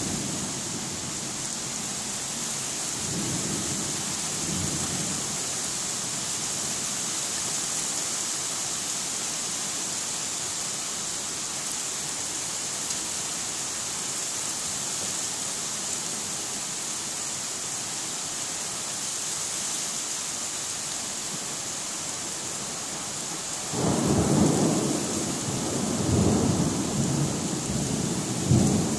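A steady downpour of heavy rain. A faint rumble of thunder comes a few seconds in, and louder rolling rumbles of thunder come near the end.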